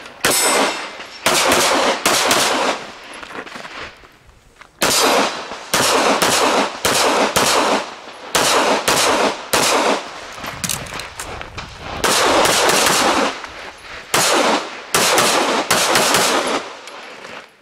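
Pistol shots fired in quick succession during a practical-shooting stage, each one echoing. Three shots, a pause of about two seconds, then a long run of shots about half a second to a second apart.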